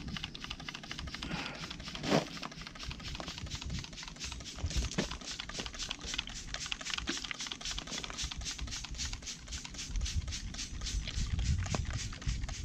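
Trigger spray bottle spritzing etching solution onto plasma-cut steel sheet in quick repeated squeezes, about three to four a second, each a short hiss. A single knock about two seconds in.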